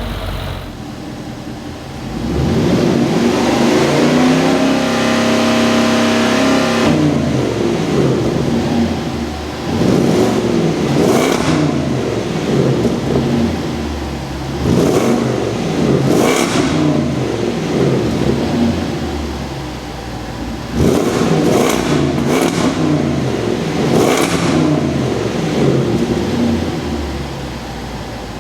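2025 Land Rover Defender 110's 5.0-litre supercharged V8 and exhaust under hard acceleration. The engine pitch climbs steadily for several seconds, then rises and falls again and again, with short sharp bursts in the middle stretch.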